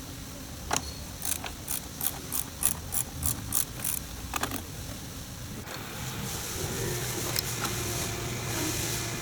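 A run of sharp mechanical clicks, about three a second for a couple of seconds, with a few single clicks around it. In the last few seconds a steady hiss and low hum come in and slowly grow.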